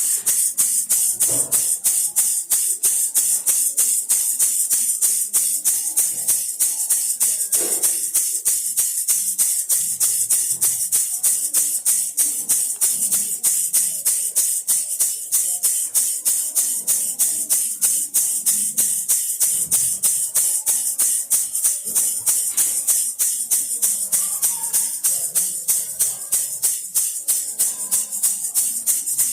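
Baby rattle shaken steadily in a fast, even rhythm, each shake a bright, high-pitched rattle of beads.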